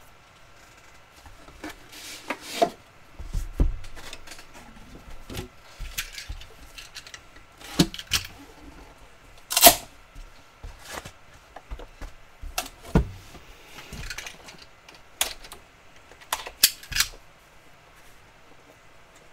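Hands handling a Panini National Treasures card box: scattered taps, clicks and soft thumps of the hinged lid and box being opened and moved on a table, the loudest a sharp snap about ten seconds in.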